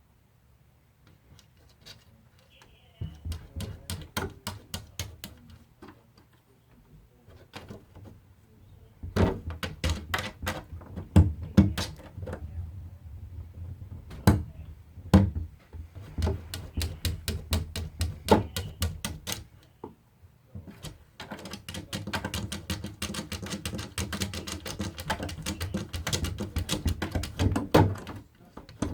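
Plastic cat-door flap rattling and clacking against its frame in quick runs of clicks as a cat pushes and paws at it. The clatter starts a few seconds in, grows busier, and stops just before the end.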